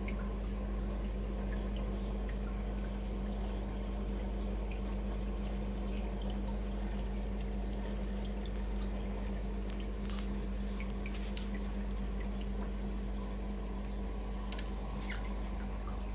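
Reef aquarium's water circulation running: a steady trickle and splash of moving water over a constant low pump hum, with a few faint drip-like ticks.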